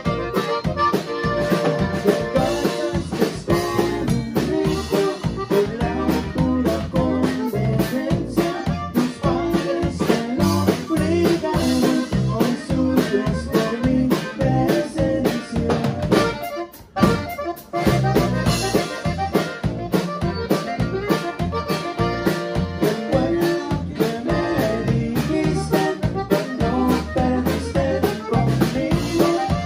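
Live conjunto band playing: button accordion leading over drum kit, electric bass and acoustic guitar, with the accordionist singing at the microphone. The music stops for a moment about seventeen seconds in, then starts again.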